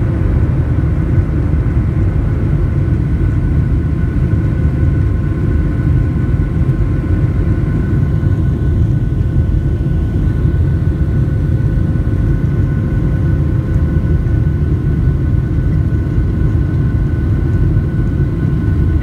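Boeing 737-700's CFM56-7B turbofan engines at climb thrust just after takeoff, heard from inside the cabin. A steady heavy rumble with a few steady whining tones over it.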